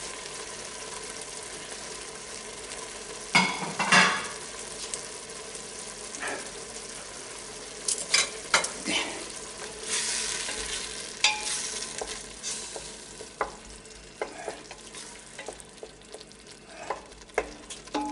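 Vegetables for a sofrito (onion, tomato, peppers) frying gently in oil in a stainless-steel pot, with a steady sizzle. A wooden spatula stirs them, scraping and tapping against the pot in short clusters, loudest about four seconds in and most frequent near the end.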